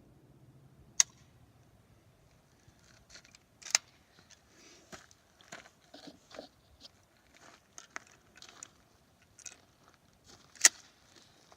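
Scattered crunching and crackling with a few sharp clicks, three of them louder: about a second in, near four seconds, and near the end.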